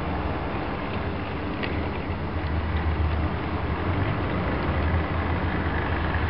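Model steam locomotive and its freight wagons rolling past on garden-railway track: a steady rumble with a few faint light clicks.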